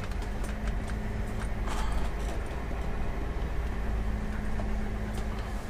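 Class C motorhome driving slowly, heard from inside the cab: a steady low engine and road rumble with scattered light rattles and clicks.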